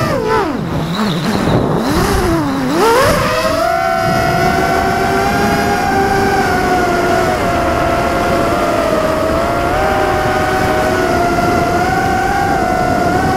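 Brushless motors of a 250-size FPV quadcopter (Emax RS2205 2300kv on Gemfan 5040 props) whining as heard from the onboard camera. The pitch drops steeply twice in the first three seconds as the throttle is cut back, climbs again, then holds a steady whine with small rises and dips.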